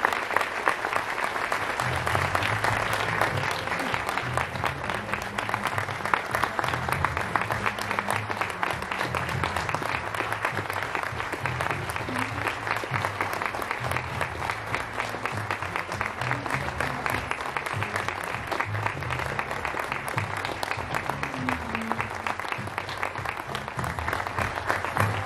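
An audience applauding steadily with many hands clapping, greeting an award being announced. Music with a stepping bass line plays underneath.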